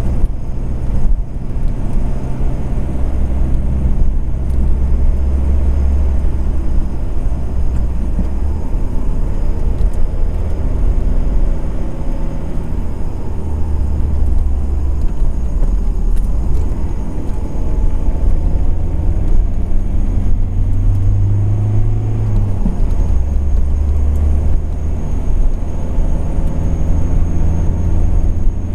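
Car driving: steady engine and road rumble, with the engine note rising and falling several times.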